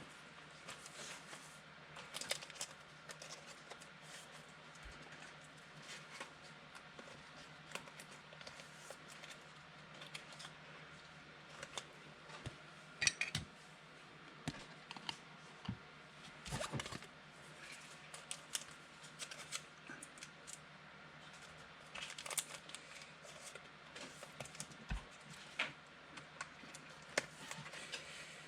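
Faint handling of trading-card packs and cards: scattered short rustles and clicks, with a few louder brief crinkles about 13, 16 and 22 seconds in.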